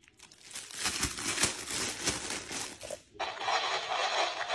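A clear plastic bag crinkling and rustling as a baby handles it: irregular crackles at first, then a denser, steadier rustle from about three seconds in.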